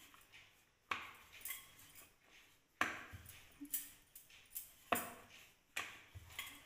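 Wooden rolling pin rolling chapati dough on a wooden rolling board (polpat): about five strokes, each starting with a sudden knock and trailing off, one to two seconds apart.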